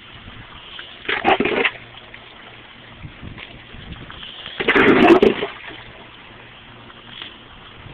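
Two big splashes of floodwater, about a second in and again about five seconds in, as water is scooped and thrown from a bucket, over a steady hiss of pouring rain.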